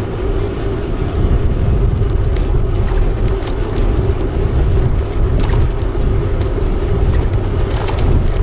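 Wind buffeting the microphone of a bicycle-mounted camera while riding, a loud, steady low rumble with a steady hum running underneath it.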